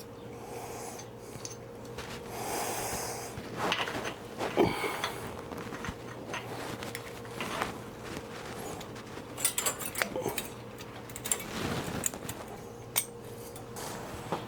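Small metallic clicks, clinks and rustles of hand tools working stainless safety wire on the starter bolts, irregular and scattered, over a steady low hum.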